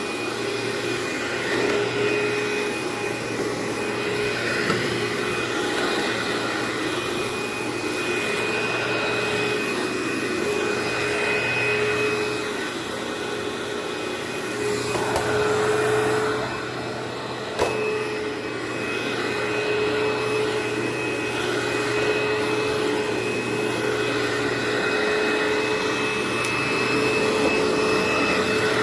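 Vacuum cleaner running steadily on carpet with a constant whine. It dips briefly about two-thirds of the way through, with a short click.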